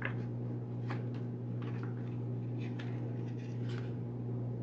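A few short, light paper rustles as pages of a small card guidebook are turned, over a steady low electrical hum.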